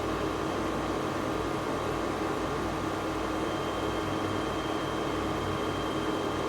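Steady background hum and hiss, like a fan or air conditioner, with a few constant faint tones and no other events.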